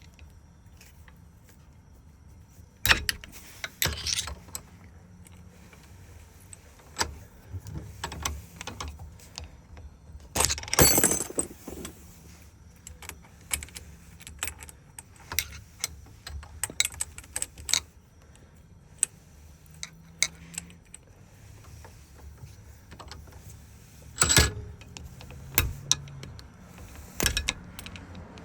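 Irregular metallic clicks and clinks of keys and small lock-cylinder parts being handled during rekeying of a Ford door and ignition lock. There is a longer rattling clatter about ten seconds in.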